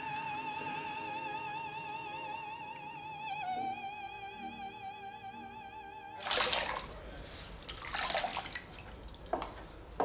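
A woman singing one long, high, operatic note with wide vibrato. It steps slightly lower about three and a half seconds in and cuts off about six seconds in. Then water splashes and trickles in a washbasin as a cloth is rinsed and wrung out.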